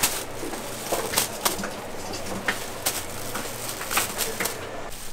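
Thin plastic bags of chili seasoning crinkling and crackling as they are handled and tied off, in a string of sharp irregular crackles.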